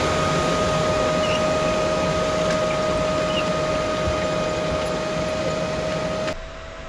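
Case IH tractor and its corn planter running steadily: a constant machine noise with a steady whine over it. About six seconds in, the sound drops abruptly to a quieter level.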